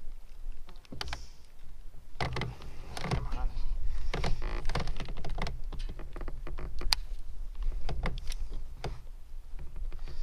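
Clicks and knocks from handling a just-landed fish and tackle aboard a plastic kayak, with a low rumble. They come in an irregular string, thickest from about two to five seconds in.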